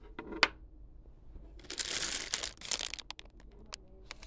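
Thin plastic snack bag crinkling as a hand handles it, with a few light clicks and taps before and after.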